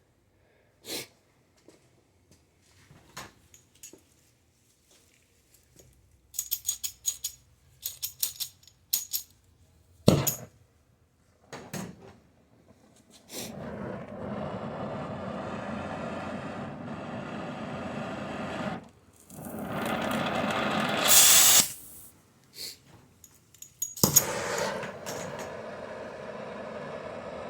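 Clinks and knocks of metal tools and parts being handled, then a steady rushing hiss from a heating tool, starting about 13 seconds in, breaking off twice and loudest around 21 seconds. The heat is being put on a wheel bearing race that is stuck on the hub.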